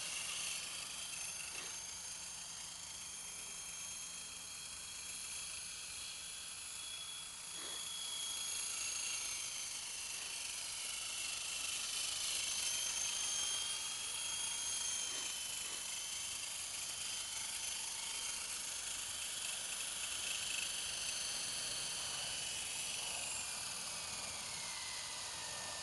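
Small electric coaxial RC model helicopter, a scale Bell UH-1 Huey, whining high as its motors and rotors run. The pitch drifts up and down with throttle and drops steadily near the end as the rotors spin down after it settles on the grass.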